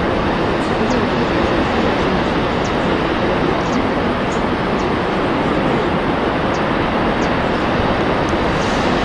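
Steady, loud rushing of wind and sea heard aboard a ship, with faint scattered high ticks.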